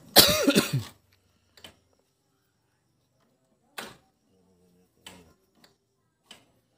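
Sparse light clicks and taps of hand tools on the top of a Mitsubishi 4DR5 diesel engine, four or so, spread about a second or more apart. Just at the start there is a short, loud call whose pitch falls and wavers.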